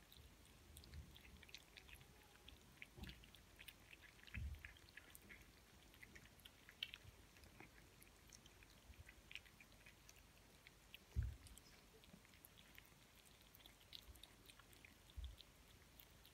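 Domestic kitten eating cat food from a bowl: faint, irregular chewing and mouth clicks throughout, with a few soft low thumps, the loudest about eleven seconds in.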